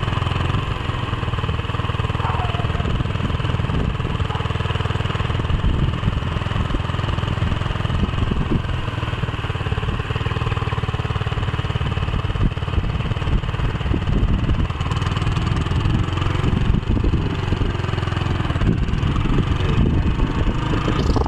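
Motorcycle engine running steadily while riding along, with a constant low rumble.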